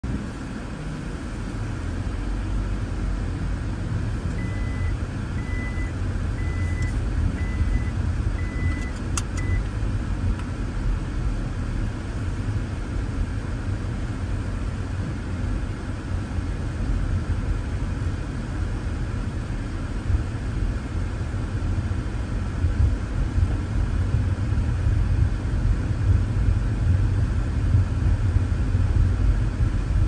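Steady low rumble of a car driving uphill, heard from inside the car: engine and tyre noise, a little louder toward the end. Between about four and ten seconds in, a short high beep repeats about five times, roughly once a second, with a single click near the end of the beeps.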